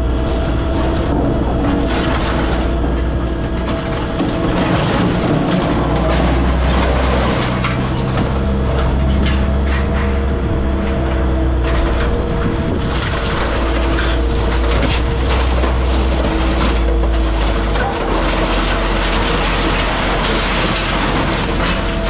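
Scrap metal baler running, its engine a steady hum and low rumble, with scattered metal clanks and crunches as scrap is compacted into bales.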